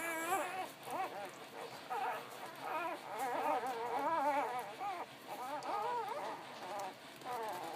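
A litter of Labrador retriever puppies whimpering and squeaking, with many short, wavering, high-pitched cries overlapping one another.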